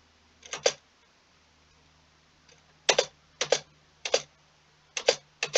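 Computer keyboard keys being pressed: about eight short, separate clicks, two near the start and the rest in small groups later on.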